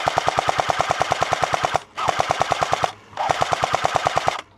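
Airsoft rifle firing on full auto in long bursts of rapid, even clicks, about fifteen shots a second, with three brief pauses between bursts.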